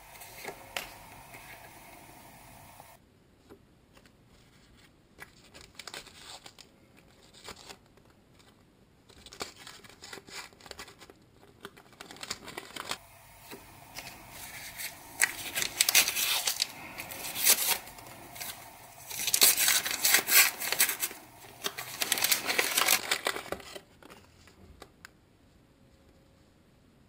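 Sticker packet wrapper being torn open and crinkled by hand, in loud rustling, crackling spells through the second half, after quieter light clicks of cards being handled.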